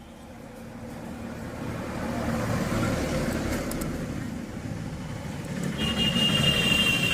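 A passing motor vehicle's engine and road noise, swelling to a peak about three seconds in, easing, then rising again, with a high steady tone near the end.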